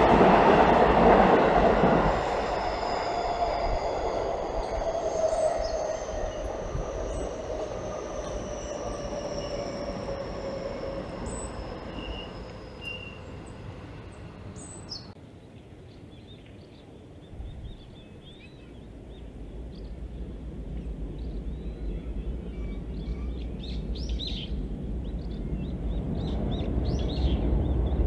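A Seibu Railway electric train passes close and draws away. Its whine glides slowly down in pitch as the sound fades to a low lull about halfway through. A low rumble then builds again toward the end.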